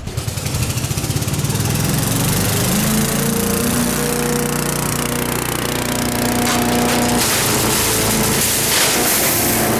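Engine-driven wood chipper starting up and running loud and steady, swelling to full level within the first second.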